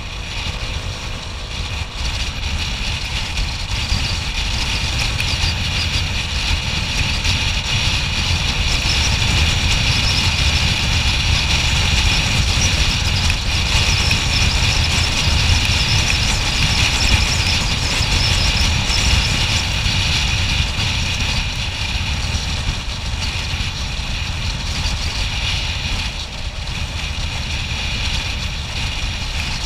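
Motor scooter riding at expressway speed: its engine and tyre noise mixed with a heavy wind rumble on the action camera's microphone. The noise grows louder over the first few seconds, then holds steady.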